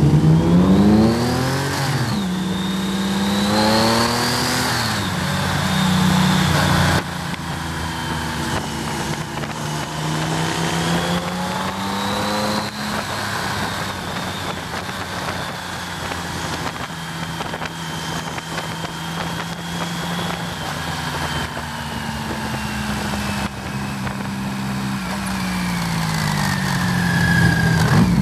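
1988 BMW K75 three-cylinder motorcycle engine under way, with wind rushing past. It pulls up through the gears, its pitch climbing and dropping back at each upshift over the first dozen seconds, then runs steadily at cruising speed and winds down as the bike slows near the end.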